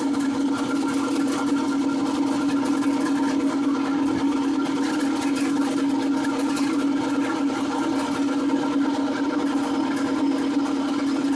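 Electric drain-cleaning machine running steadily with an even hum, its motor spinning the cable down a storm drain clogged with tree roots.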